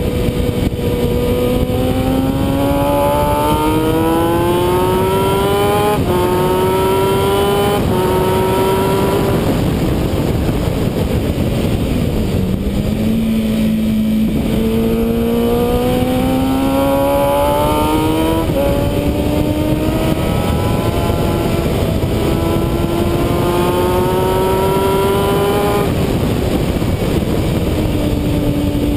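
Sport motorcycle engine heard onboard, accelerating hard: the revs climb with a drop at each upshift, then fall away on braking and downshifting about a third of the way in, climb through the gears again, and fall once more near the end. A steady rush of wind runs underneath.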